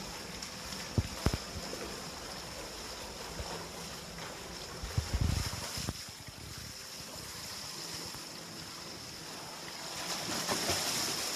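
A swimmer sprinting in an indoor pool: water splashing from the push-off and kicking strokes, the splashing growing louder near the end, over a steady hiss in the echoing pool hall. Two sharp knocks come about a second in.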